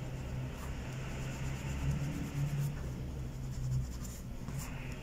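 Light rubbing of a fingertip and cloth on a piece of craft foam in short, repeated strokes, blending colour around its edges, over a low steady hum.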